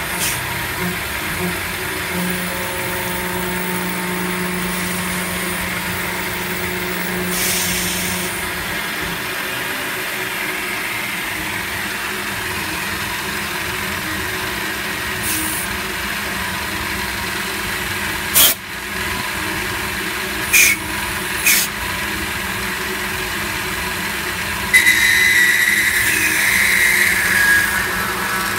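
CNC milling machine's spindle and end mill cutting a metal block, likely aluminium, under flood coolant spray, a steady machining noise. A few sharp knocks come about two-thirds of the way through, and a louder, higher squeal with a falling pitch comes near the end.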